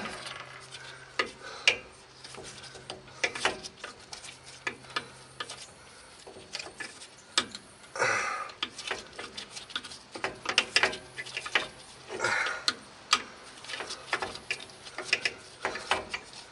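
Irregular metal clicks and clinks of hand tools on the old rear wheel cylinder and its bolts as it is worked off a drum-brake backing plate, with a few short scraping sounds.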